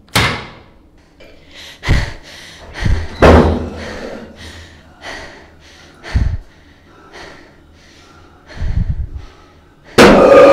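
Heavy bangs and slams on a toilet cubicle door at uneven intervals, several of them very loud, with quick, frightened breathing in between. Near the end a loud, sustained sound with a pitch cuts in.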